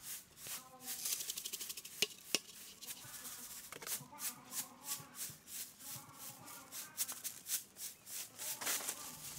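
Repeated scraping strokes, about three a second, with a quicker flurry a second in and two sharp clicks at about two seconds.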